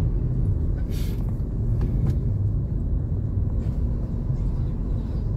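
Steady low rumble of a car's engine and tyres heard from inside the cabin while driving, with a short hiss about a second in.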